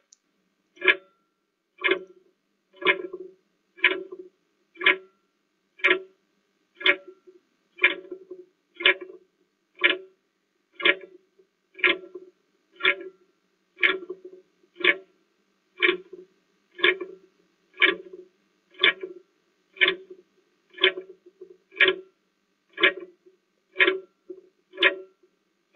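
Clock ticking, one tick a second, timing a 30-second countdown for answering a quiz question.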